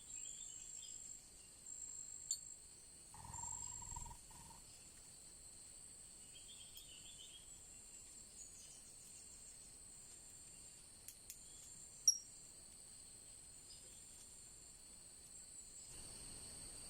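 Steady, high-pitched insect buzzing with a few short bursts of small-bird chirps. A brief mid-pitched tone comes about three seconds in, and a sharp click about twelve seconds in.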